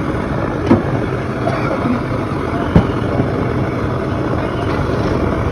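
Steady loud street noise, with two sharp knocks, one about a second in and one near three seconds in.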